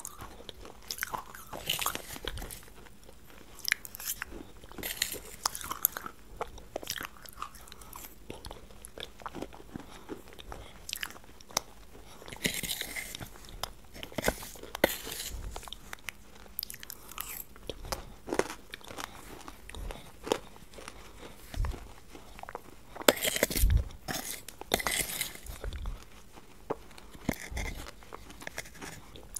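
Close-miked eating sounds of ice cream dessert: wet chewing, lip smacks and small clicks from the mouth, with a fork scraping and tapping on the steel plate. Several louder bursts come near the middle and near the end.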